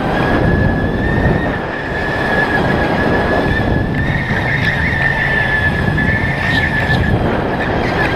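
Sodi RTX electric go-kart's drive whining at a steady high pitch over the rumble and rattle of the kart rolling on the track. The whine rises slightly midway and cuts off about seven seconds in.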